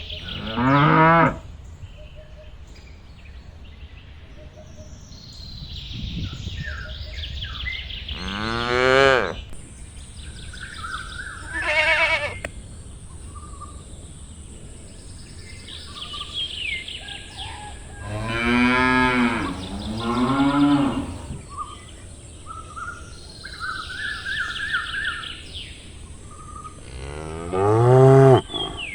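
Cows mooing: about six drawn-out calls, each around a second long, spread through the stretch. Small birds chirp in between.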